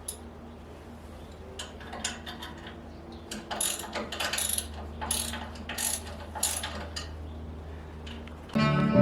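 A ratchet clicking in a run of short bursts, tightening bolts while a TV wall bracket is mounted, over a steady low hum. Loud music comes in near the end.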